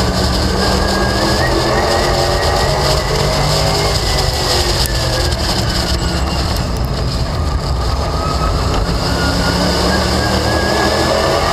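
Late Model stock car's V8 engine running hard at racing speed, heard onboard. The engine note climbs, drops off about five to seven seconds in as it eases, then climbs again under acceleration.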